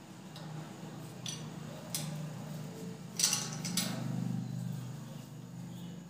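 Small metal clinks and taps as a ceiling fan's downrod is handled and fitted into the motor housing, with a few single clicks and then a louder cluster of clinks about three seconds in, over a steady low hum.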